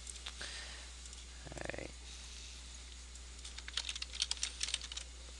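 Typing on a computer keyboard: a few scattered keystrokes, then a quick run of keystrokes about three and a half seconds in.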